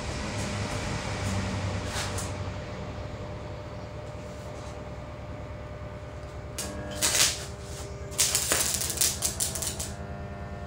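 Stick-welding arc struck on a fresh electrode, crackling and hissing in a short burst about seven seconds in and again for about two seconds near the end, as the new rod is scratched to warm it and clear the glaze off its tip. A steady machine hum runs underneath.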